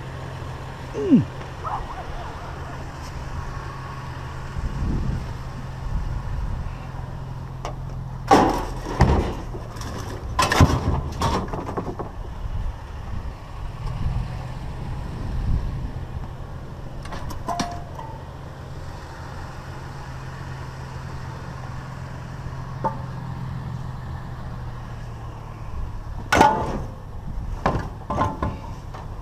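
A vehicle engine idling with a steady low hum, while steel exhaust mufflers and pipes are handled and set into a pickup truck bed, giving sharp metal clanks in a cluster about a third of the way in, one more around the middle, and another cluster near the end.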